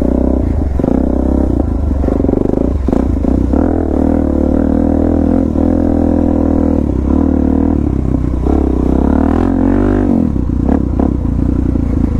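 Suzuki DR-Z400S's 398 cc single-cylinder four-stroke engine through an aftermarket slip-on exhaust, under way with the revs rising and easing off. The pitch dips about ten seconds in, then picks up again. A few knocks and rattles come through.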